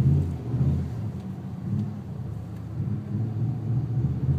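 A vehicle's engine and tyre noise heard from inside the cabin while driving over snow: a low rumble that swells and eases.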